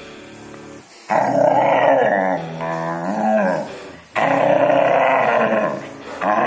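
A desi dog gives a quieter grumble, then two long, loud growl-howls with its mouth wide open, and a third begins near the end. It is an angry protest at being told to get off the bed.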